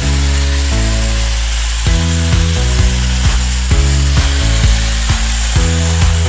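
Background music with a bass line and a steady beat, over the continuous hiss and high, steady whine of a Bihui mini angle grinder running.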